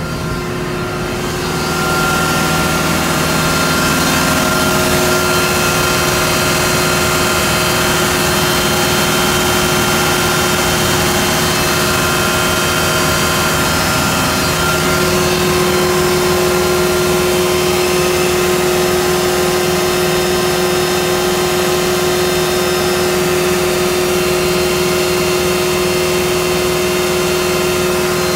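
FMC LMD2000 deicer truck's machinery running steadily, a loud, even mechanical drone with a few fixed hum tones that gets louder about two seconds in and shifts slightly in tone about halfway through.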